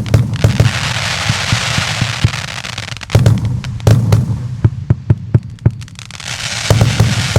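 Consumer firework battery ("Kabum" JF C30-75/01 cake) firing: many sharp bangs in quick, irregular succession over a low rumble. A dense hissing crackle runs through the first three seconds and returns near the end.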